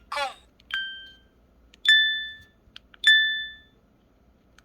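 Pantech Sky IM-S480 mobile phone key tones: a short synthetic voice syllable from the voice-guidance key tone, then three short electronic beeps about a second apart, each fading out.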